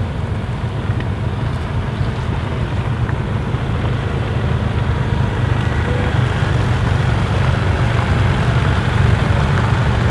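Several BMW adventure motorcycles running at low speed over gravel, a steady low engine rumble that grows a little louder.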